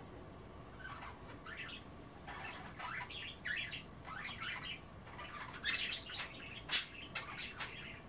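Budgerigars chattering: a run of quick chirps starting about a second in, with one sharp click a little before the end.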